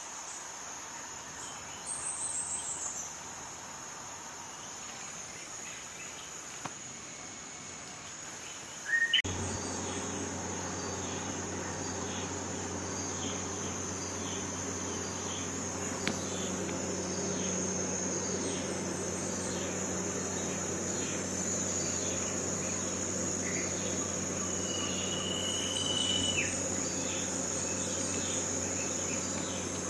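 Insects chirping steadily, in a high, even drone. About nine seconds in, a low hum switches on and continues underneath.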